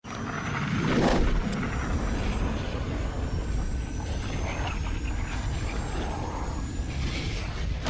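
Edited-in cinematic sound effect under a logo card: a deep steady rumble with a whoosh swelling about a second in and faint high whines slowly rising in pitch, like a jet passing overhead.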